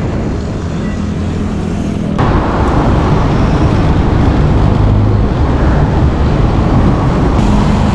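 Road traffic noise heard from a bicycle riding along a highway: a steady rush of passing vehicles and wind. It turns suddenly louder and fuller about two seconds in.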